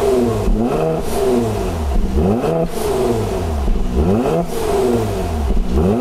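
Mercedes-AMG C43's twin-turbo V6 free-revved through its stock exhaust in about four quick blips, each rising sharply in pitch and falling back.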